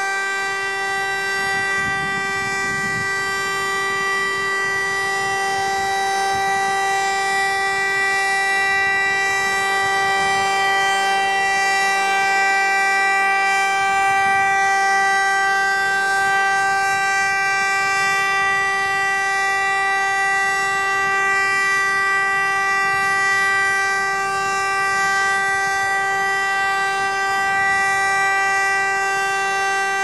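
VEM DS977 electric motor siren sounding a steady, level tone at full speed, the continuous test signal of a siren test.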